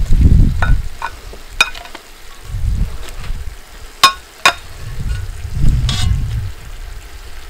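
Chicken thighs sizzling in a cast-iron Dutch oven over a rocket stove, with several sharp clinks of metal tongs against the pot as the pieces are arranged. A low rumble swells and fades underneath.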